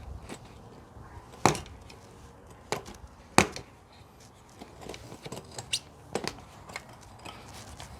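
A spatula used as a tire lever clicking and knocking against a small bicycle wheel's rim while prying the tire bead off, with two sharp knocks about a second and a half and three and a half seconds in and lighter clicks between.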